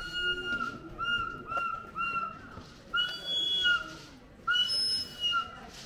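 Whistling: a run of about seven clear notes at much the same pitch, some long and some short, each dropping slightly at its end, with a pause a little past the middle.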